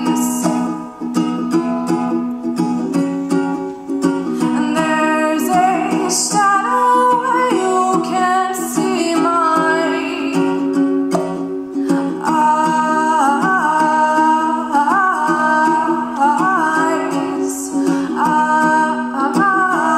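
A woman singing to her own strummed ukulele accompaniment.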